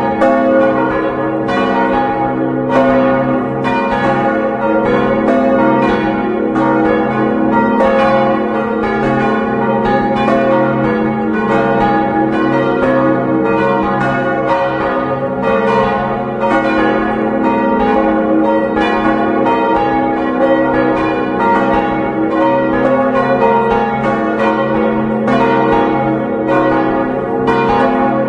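Four church bells tuned to a Westminster chord, including a 1906 Causard bell in C♯ and an 1822 Bender bell in F♯, ringing in full swing, heard close up inside the belfry. Their clapper strokes come several times a second and overlap over the steady hum of the bells' lingering tones.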